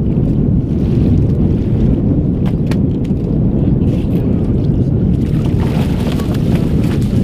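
Wind buffeting the microphone, a loud steady low rumble, on a drifting fishing boat. About five seconds in, water splashes at the side of the boat as the catch is grabbed by hand.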